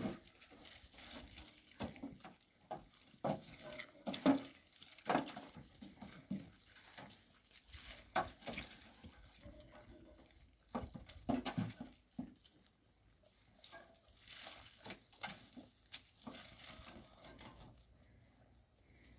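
Goats eating carob pods from a metal hay rack: irregular crunching, rustling and small knocks as they chew and pull at the feed.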